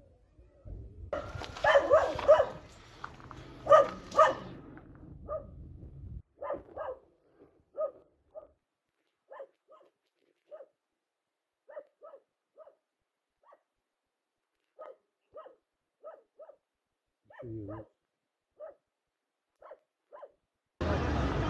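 A dog barking: a quick run of loud barks over the first few seconds, then single barks about a second apart, fainter. A loud steady noise cuts in just before the end.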